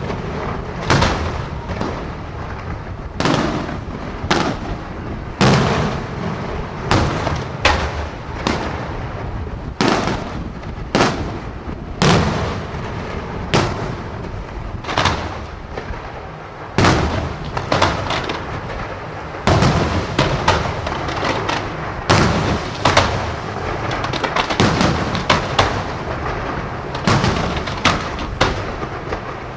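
Fireworks display: aerial shells bursting in loud, sharp bangs every second or two, each trailing off in a rumbling echo, with crackling between. The bangs come faster and overlap in the last third.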